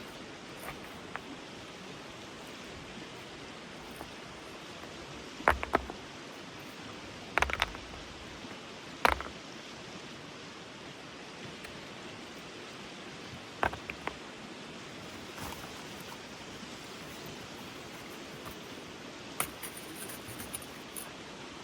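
Steady rushing of a mountain stream, with a handful of sharp knocks and clicks at irregular intervals over it, the loudest about nine seconds in.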